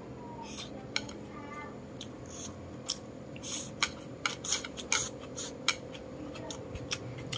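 Close-miked chewing of a mouthful of rice, with a run of sharp wet mouth clicks and smacks that comes thickest in the middle seconds.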